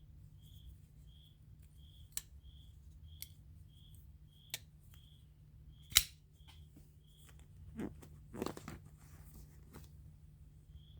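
Handling of a titanium folding knife: a few sharp metallic clicks, the loudest about six seconds in, with some rustling near the eight-second mark. A faint high tick repeats about twice a second throughout.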